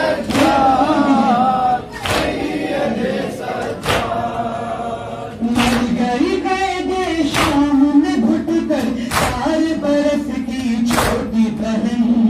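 Noha, a Shia mourning elegy, sung without instruments by a male reciter into a microphone, with a crowd of men chanting along. Unison chest-beating (matam) strokes land about every two seconds, keeping the beat.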